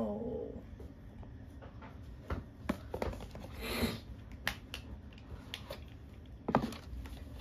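Handling of a cardboard gift box: scattered light clicks and taps, a brief rustle a little under four seconds in and a sharper knock about six and a half seconds in, as the box is turned over and opened.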